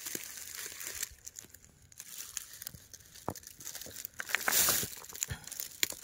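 Rustling and crunching from a person moving about on dry ground debris, with scattered small clicks and a louder rustling stretch a little after the middle.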